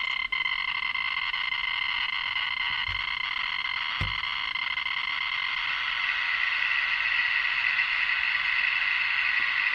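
Audio clicks of a Ludlum Model 2 rate meter coming so fast that they merge into one continuous dense crackle: a very high count rate as a strontium-90/yttrium-90 beta source sits in front of a DIY BC408 plastic scintillation probe. It grows a little louder in the second half, with a light handling knock about four seconds in.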